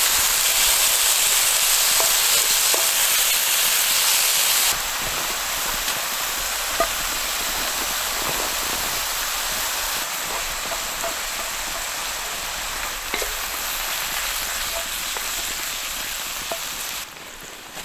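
Portobello mushrooms sizzling in a cast iron pan over a campfire: a steady frying hiss with occasional small pops, as the mushrooms give up their water. The sizzle drops in level a few times.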